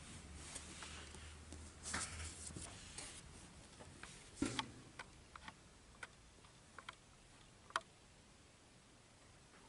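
Handling noise: scattered light clicks and taps as trading cards and the camcorder are moved about, loudest about halfway through and near the end. A low hum dies away over the first couple of seconds.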